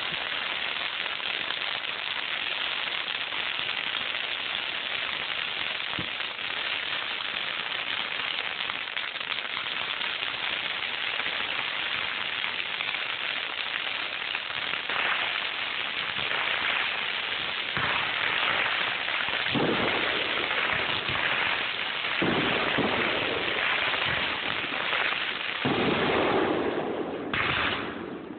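Fireworks show heard through a phone's microphone: a dense, continuous mass of small pops, with heavier bangs joining from about halfway and getting louder. It dips briefly just before the end.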